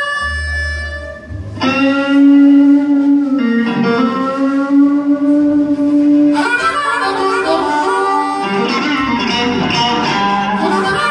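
Live blues-rock band: a harmonica cupped against a vocal microphone plays long held notes over electric guitar. About six seconds in the playing turns busier, with denser guitar and harmonica lines.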